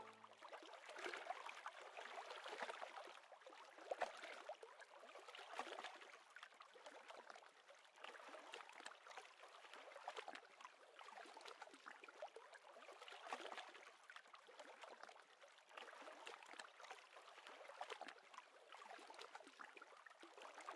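Faint water lapping and rippling: an uneven, quiet wash with small irregular splashes.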